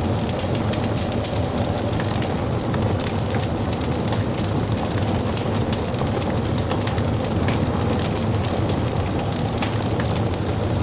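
Wood fire burning: frequent small sharp crackles and pops from the burning wood over a steady low rumble of the flames.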